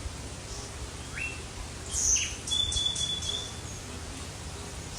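A bird calling: a short rising chirp about a second in, then a louder high call and a quick run of short notes over a held whistle-like note.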